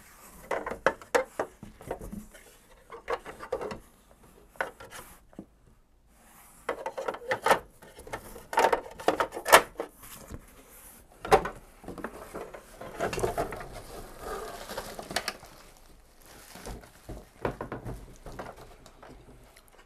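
A vintage plastic toy fire engine being worked out of its cardboard box: irregular scraping and rustling of cardboard with sharp knocks and clicks of hard plastic. The handling pauses briefly about five seconds in.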